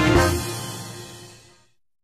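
Music fading out and ending just under two seconds in.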